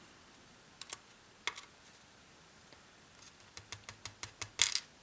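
Small metal lock parts and tweezers clicking and tapping as a pin-tumbler lock is taken apart over a pinning tray: two single clicks in the first half, then a quick run of clicks near the end, the loudest just before it stops.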